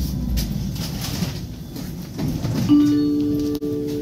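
Tram running along its rails with a low rumble. About two-thirds of the way through, a steady electronic tone starts and holds.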